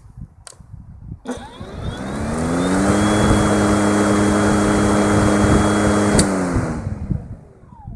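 Florabest 36 V cordless lawnmower's brushless motor and blade switched on with a click, spinning up with a rising whine and a rush of air, running steadily for about three seconds, then switched off with a click and spinning down with a falling whine.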